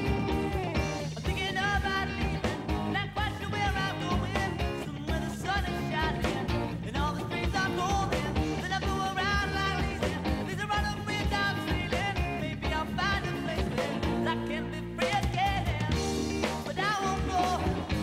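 A rock song with singing over a band backing and a steady beat, which eases briefly near the end and then comes back in.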